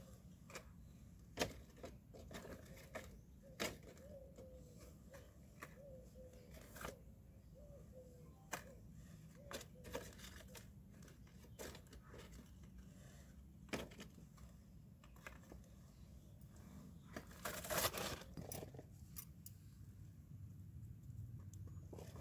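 Thin metal wire tongs clicking and scraping as small paper-and-foil mini bins are gripped, lifted and shaken out over a paper bag, with light paper crinkling. Scattered single clicks, and a louder rattling stretch about three-quarters of the way through as a bin is dumped.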